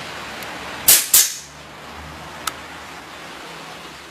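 A C-type (C-ring) nail gun fires twice in quick succession, two sharp snaps about a quarter second apart, each with a short hiss, as it drives C-rings to clamp a seat cover to the foam cushion. A small click follows about a second later.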